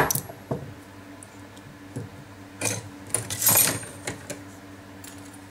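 Light metallic clicks and a short rattle of small metal pieces and tools being handled on a steel bench block, over a faint steady hum.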